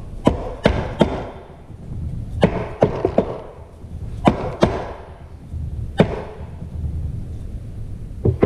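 Irregular sharp knocks and clunks, about ten in all, as the front pump of a Ford E4OD automatic transmission is knocked and worked loose from the transmission case without a slide hammer.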